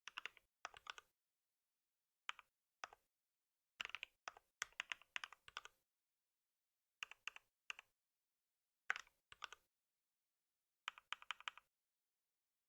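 Typing on a computer keyboard in short bursts of a few keystrokes each, with pauses of dead silence between bursts.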